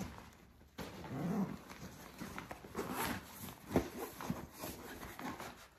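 Nylon disc golf bag and its rain fly rustling and flapping as they are handled and pulled open, with a sharper knock nearly four seconds in.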